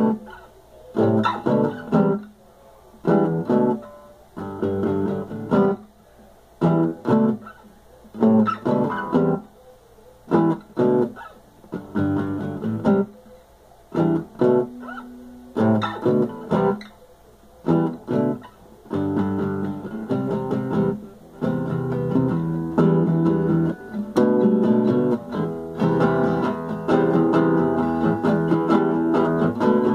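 Acoustic guitar strummed: short chord strikes with brief pauses between them, turning into continuous strumming about two-thirds of the way through.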